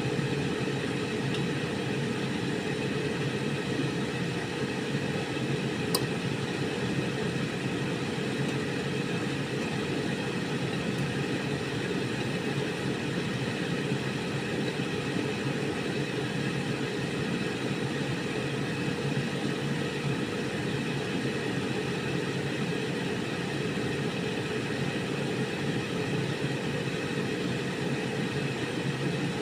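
Air fryer running: a steady fan whir with a low hum, and one sharp click about six seconds in.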